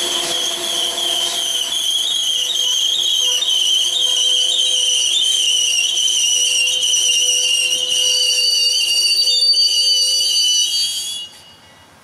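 Steel wheels of Amtrak Northeast Regional passenger cars squealing against the rail as the train rounds a curve: a steady, high-pitched, slightly wavering squeal that cuts off suddenly near the end.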